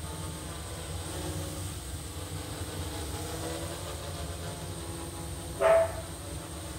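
Small, quiet-built quadcopter with DJI Mini 2 motors and reduced-pitch 5-inch props hovering. It gives a faint steady hum with soft propeller tones drifting slowly in pitch. About a second before the end comes one short, loud pitched cry, the loudest sound here.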